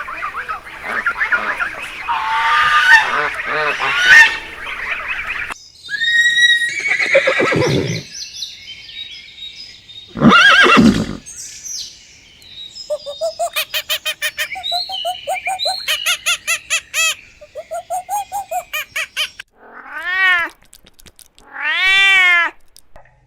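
A string of different farm animal and bird calls, one after another, ending with two drawn-out calls that rise and fall in pitch.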